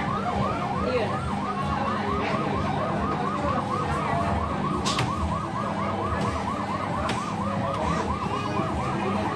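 Fire truck kiddie ride's electronic siren sound effect: a fast wailing tone that rises and falls over and over, about four or five sweeps a second, at a steady level.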